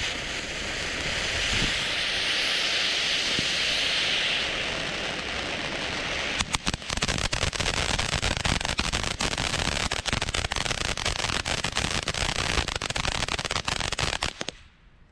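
Ground fountain firework burning: a steady hiss of spraying sparks that turns, about six seconds in, into a dense run of crackling pops, and then dies out near the end.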